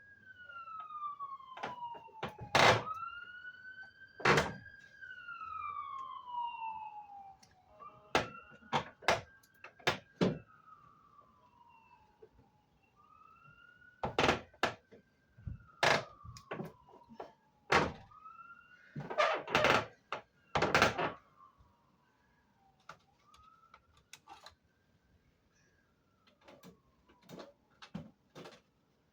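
A siren wailing, rising and falling slowly about every five seconds and fading out in the last part. Over it come repeated sharp knocks and clunks from a window air conditioner unit being handled and fitted.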